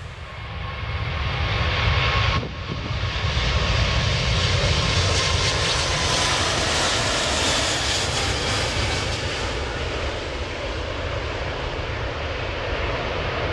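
Airbus A380's four jet engines at takeoff power, a loud steady roar that swells over the first couple of seconds, dips briefly, then slowly eases as the airliner climbs away.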